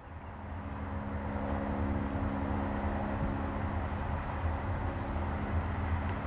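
Distant diesel freight locomotives of a Florida East Coast intermodal train running under power as they approach, a steady low engine drone and rumble. It grows louder over the first two seconds, then holds.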